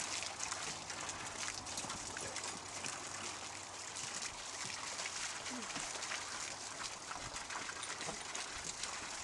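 A thin stream of water splashing steadily into a shallow pool, with dogs wading and sloshing through the water.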